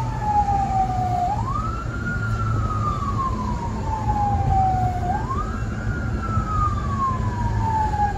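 Fire brigade vehicle's wailing siren, heard from inside the cab: each cycle jumps up quickly, then slides slowly back down over about three seconds, rising again twice, over the low rumble of the engine and road.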